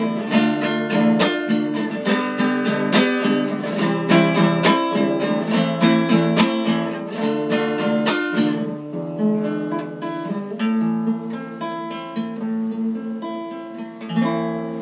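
Cutaway classical guitar played solo, strummed chords in a lively, even rhythm, thinning out and softening about halfway through and dying away toward the end, with one last louder strum: the instrumental close of the song.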